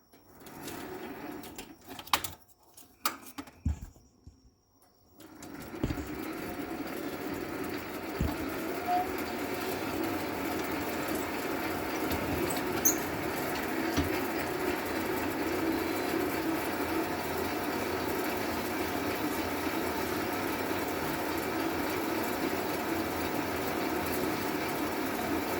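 A few knocks and clicks of handling at the cue lathe, then about five seconds in the small cue lathe's motor starts and runs steadily, with a hum.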